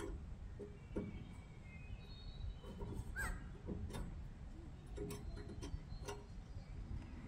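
Faint, scattered clicks and taps from hands adjusting a portable bandsaw mill's blade guide and tensioner. Faint bird chirps can be heard in the background.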